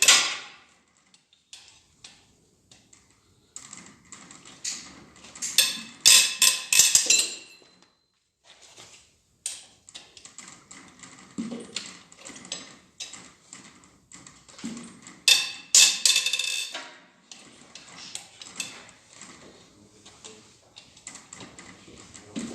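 Hand ratchet clicking in two quick bursts with metal tool clinks, as cylinder head bolts are loosened with an M12 bit.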